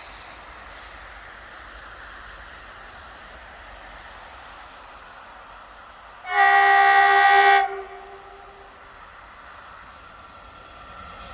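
Kockums Tyfon air horn on a Swedish electric multiple unit sounding one steady blast of about a second and a half, over the hiss of the oncoming train. The train noise grows louder near the end.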